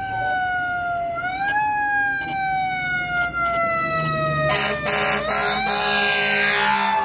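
Fire engine's siren wailing as it approaches, each cycle rising quickly and then sliding slowly down. From about halfway the truck's air horn blasts over it, the loudest part.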